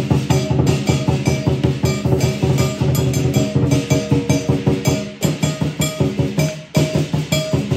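Lion dance percussion: a drum beaten in a rapid, steady rhythm with cymbals and gong ringing over it. The beat thins out briefly about two-thirds of the way through, then picks up again.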